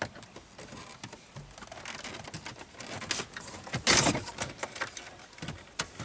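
Light clicking and metal-on-plastic rattling as a car radio head unit is released with removal tools and worked out of the dashboard slot, with a louder clatter about four seconds in.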